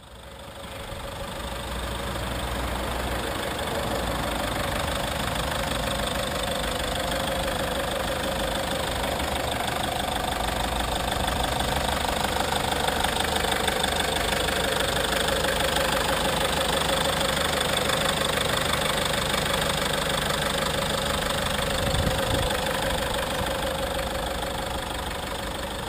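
Engine of a 2011 Citroën Jumpy van idling steadily with the bonnet open, fading in over the first second or two.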